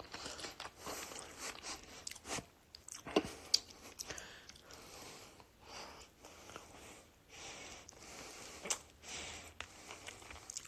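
A person chewing and biting into fried chicken wings, with scattered small crunches and mouth clicks.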